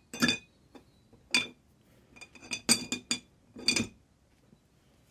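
Rusty steel horn brackets dropped one after another into a glass jar, clinking against the glass and against each other: several sharp clinks over the first four seconds, the last about four seconds in.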